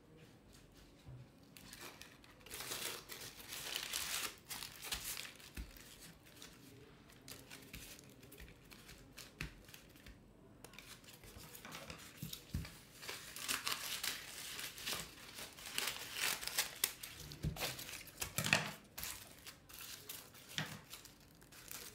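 Thin tissue paper crinkling and rustling as it is pressed, crumpled and folded around the edges of a canvas, in two stretches of crackly handling noise with a quieter spell in between.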